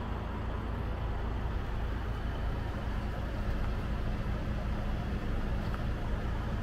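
A large vehicle engine running steadily, a low rumble.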